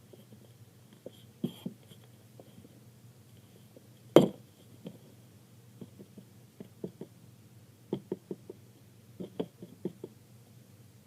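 Light taps and clicks of a baby powder container and craft pieces being handled on a table, with one sharp knock about four seconds in and small clusters of taps near the end, over a faint steady hum.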